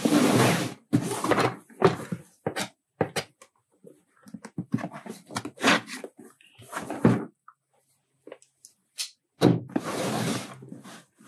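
Cardboard shipping box being cut open: a knife slitting the packing tape and the box being turned over and shifted on a table, heard as irregular scraping and rustling strokes with a few bumps, in clusters separated by short pauses.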